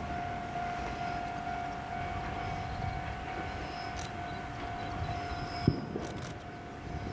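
Diesel railcar running, a steady whine over a low rumble; a single knock comes about six seconds in and the whine stops just after it.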